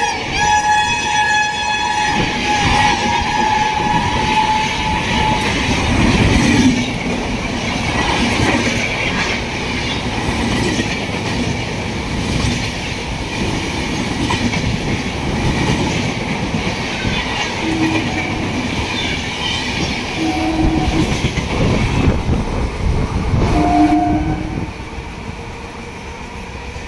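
A Rajdhani Express of LHB coaches passing through a station at speed. The locomotive's horn sounds for the first five seconds or so, under the rushing rumble and clickety-clack of the coaches going by. The noise falls away about 24 seconds in as the last coach passes.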